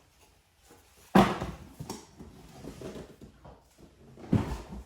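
Hard plastic knocks and handling rustle as a cordless tool battery pack is handled, with a sharp knock about a second in and another near the end.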